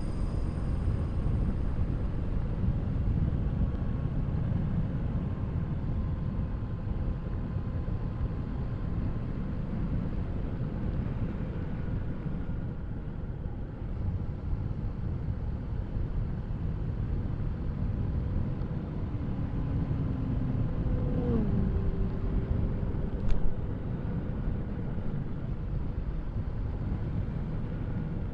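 Motorcycle on the move, with a steady low rush of wind over the action-camera microphone and the engine running underneath. A brief dip in engine pitch comes about two-thirds of the way through, and a single sharp click follows soon after.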